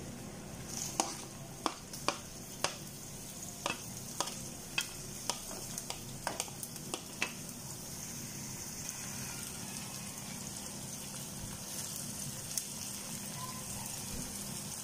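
Sliced onions and shallots sizzling in hot oil in a pan, with a quick series of sharp taps from a wooden spatula as they are pushed into the pan during the first several seconds, then a steady sizzle.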